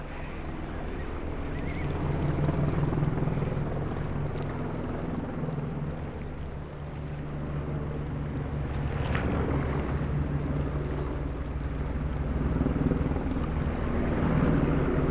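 Wind rumbling steadily on the microphone over the sea.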